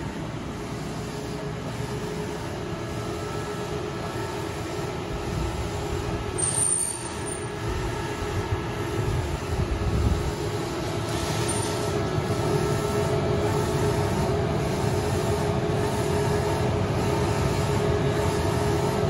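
Keditec 9060 UV flatbed printer running as it prints: a steady mechanical hum with several held tones over a rumble, growing slightly louder, with a couple of louder knocks around the middle.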